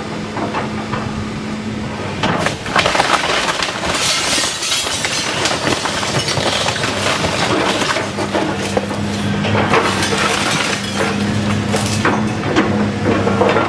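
A house being torn down: wood and glass crashing and breaking, starting about two seconds in and going on in repeated bursts, over the steady hum of a heavy machine's engine.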